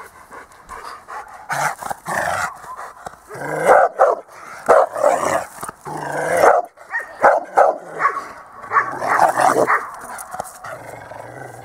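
A Rottweiler barking over and over in quick bouts, starting about a second and a half in and easing off near the end.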